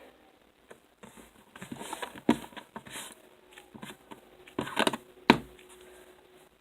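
Butter slime being handled and pressed, making irregular small crackling clicks and squishes, with the sharpest clicks about two seconds in and near five seconds.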